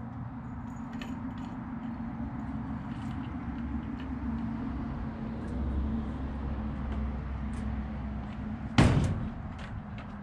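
Steady low rumble with a few faint clicks, then a single loud knock about nine seconds in.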